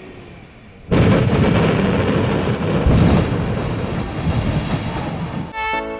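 Stromboli volcano erupting: a sudden loud blast about a second in, followed by a continuous rushing, rumbling noise from the lava fountain that slowly eases. Background music with saxophone comes in near the end.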